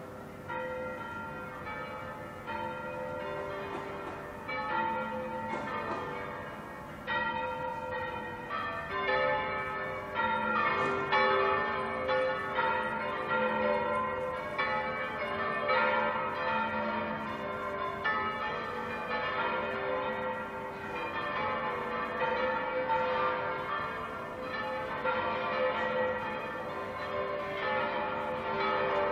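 Several church bells pealing together, strokes overlapping and ringing on. The peal grows fuller and louder about seven seconds in.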